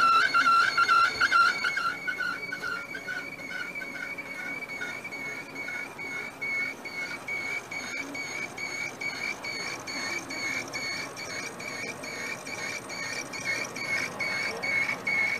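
Kyocera ECOSYS 3540 printer giving a high-pitched squeak as it starts up, the odd noise it makes only when first starting. The squeal wavers for about two seconds, then jumps to a higher, steady tone pulsing a few times a second, and stops suddenly near the end.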